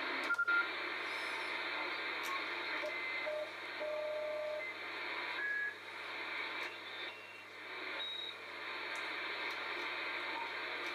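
Kenwood TS-2000 shortwave transceiver receiving in upper sideband while being tuned up the 20 m band: a steady hiss of band noise from its speaker, with a few brief whistles at different pitches and a short keypad beep about half a second in. The band is quiet, with no stations heard.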